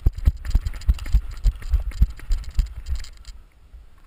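Running footsteps on gravel and dry ground, each stride jolting the body-mounted camera, with the player's airsoft rifle and gear rattling; about three strides a second, stopping about three seconds in.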